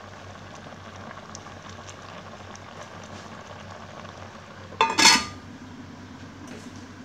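Chicken curry simmering in an aluminium pot, with faint bubbling. About five seconds in, the pot's aluminium lid is set on with a loud metal clatter that rings briefly.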